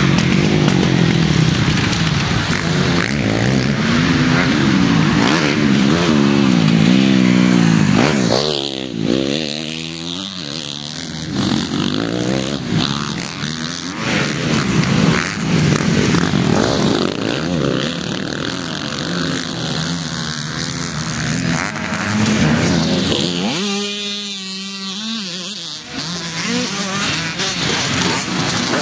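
Several motocross bikes racing past one after another, engines revving up and dropping back again and again as the riders work the throttle over the crest, with two brief lulls between groups of riders.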